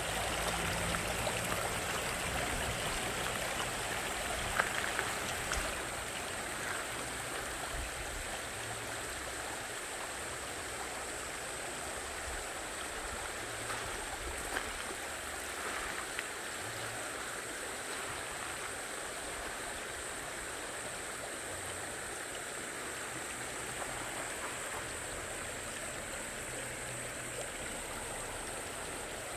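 Shallow stream babbling over stones and gravel, a steady rush of water that is a little louder for the first few seconds and then evens out.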